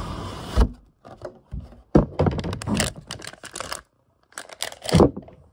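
Plastic model-kit runners and their packaging being handled: irregular bursts of crinkling, rustling and light knocks, with short pauses between them and a brief lull a little past the middle.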